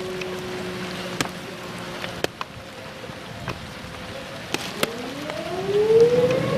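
Outdoor tornado warning siren: a held tone that sags slightly in pitch and dies away about two seconds in, then winds up again in a rising glide from about five seconds in. Steady rain hiss underneath, with a few sharp clicks.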